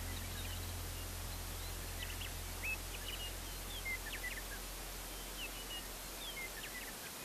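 Birds chirping: many short, high notes, some sliding downward, scattered through, over a faint low steady hum that stops near the end.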